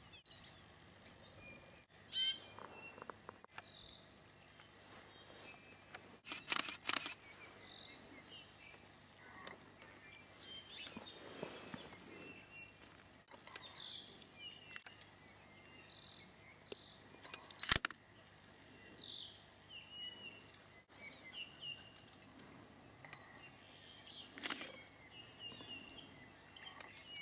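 Scattered short chirps and squeaky calls of an 'i'iwi (scarlet Hawaiian honeycreeper), punctuated by camera shutter clicks: one about two seconds in, a quick run of clicks around six to seven seconds, and single clicks later on.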